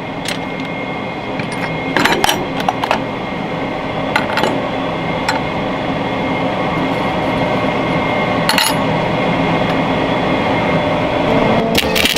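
Small metal parts clinking and knocking against a workbench a few times over a steady hum. Just before the end, a welding arc strikes and starts to hiss and crackle.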